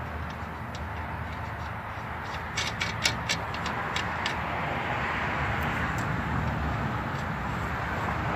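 Sharp metallic clicks from hand tools and hardware being handled at a truck's lower ball joint. There is a quick cluster about two and a half to three seconds in and a few scattered clicks later, over a steady low rumble.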